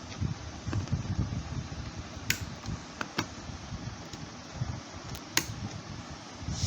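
A few sharp clicks and taps of small computer parts being handled during a PC build, over a low, uneven rumble of microphone handling noise.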